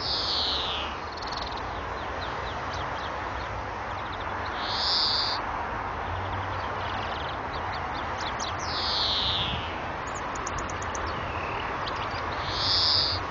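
European greenfinch singing: four long, wheezy buzzing notes about every four seconds, two of them sliding down in pitch, with quick twittering trills between them, over a steady hiss.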